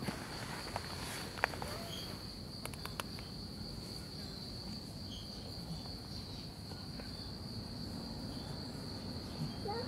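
Crickets trilling in one steady high-pitched drone, with a few faint clicks about a second and a half and three seconds in.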